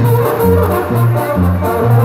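Live Sinaloan banda music: trumpet, trombones and clarinets playing over a low bass line that changes note about twice a second.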